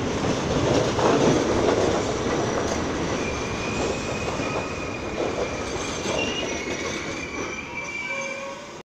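R32 subway train pulling out along the platform, wheels squealing in a thin high tone over the running rumble. The sound slowly fades as the last car draws away, then cuts off suddenly at the very end.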